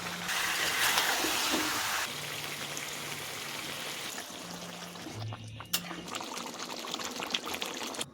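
Steady watery hiss from cooking in a pan, loudest in the first two seconds, over background music with low held notes.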